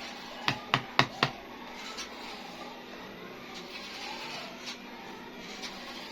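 Four quick, sharp taps, about four a second, as small miniature kitchen-set pieces are handled, then a single fainter tap and quiet handling.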